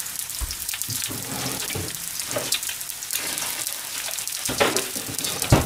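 Fish-sausage pieces sizzling and crackling in hot oil in a nonstick frying pan, a steady hiss of small pops. A single louder knock comes just before the end.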